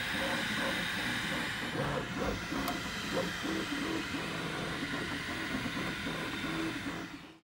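Flashforge Finder 3D printer running as it prints the raft: its stepper motors whir in short tones that jump up and down in pitch as the print head moves back and forth, over a steady fan hiss. The sound fades out just before the end.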